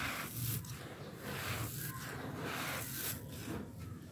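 Hands crushing and crumbling a round slab of dry, gritty grey sand-and-gravel mix, the grains crunching and pouring down in a series of short bursts.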